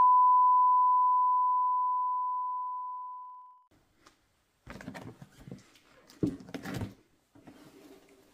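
An electronic ding at one steady pitch that fades out slowly over about three and a half seconds. After a short pause, a cardboard box is handled on a tabletop: rubbing and scraping, with one sharp knock in the middle.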